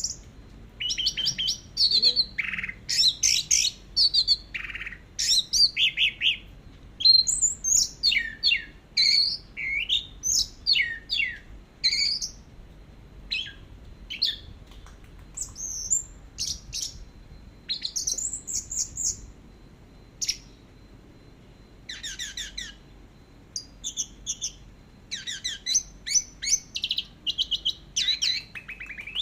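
Orange-headed thrush singing a long, unbroken run of quick varied chirps, whistles and trills, with a short pause about twenty seconds in.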